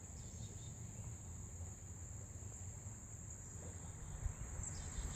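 Crickets trilling in a steady, continuous high-pitched chorus over a low rumble, with a soft knock about four seconds in.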